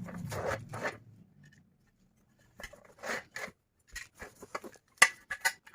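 Short rasping and clicking handling noises in scattered strokes. A low hum dies away in the first second, there is a pause of about a second and a half, then the strokes come fast again, with a sharper click near the end.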